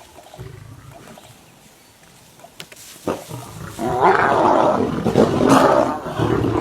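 Lions snarling and roaring in a fight: faint low rumbling at first, then loud, harsh roars and snarls break out about four seconds in and keep going.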